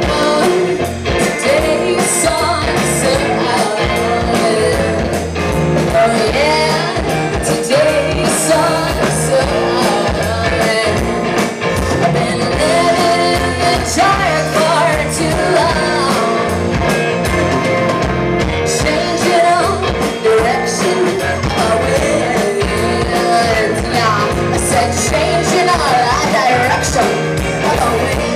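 Alternative rock band playing live: a woman singing over electric guitar, bass guitar and drums, with a steady beat.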